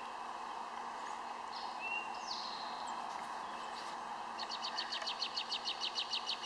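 Outdoor ambience with a steady background hiss and birds calling: a couple of short chirps about two seconds in, then a rapid high trill of about eight notes a second from about four and a half seconds in.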